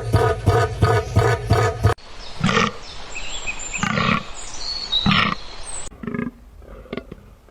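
Wild animal calls: a quick run of pulsing cries, then, after an abrupt change about two seconds in, separate cries about a second apart with thin high whistles over them, going fainter after another cut near six seconds.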